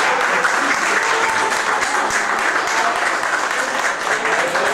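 Audience clapping steadily, a roomful of hands applauding without pause.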